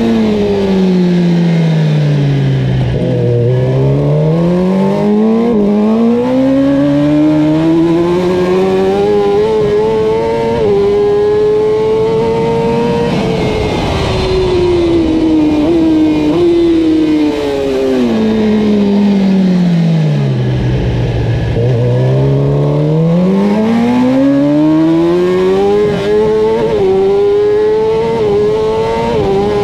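Kawasaki Ninja ZX-10R race bike's inline-four engine heard from the rider's helmet, twice slowing with its pitch falling, then pulling hard up through the gears with a brief dip at each upshift. Wind rushes over the helmet microphone throughout.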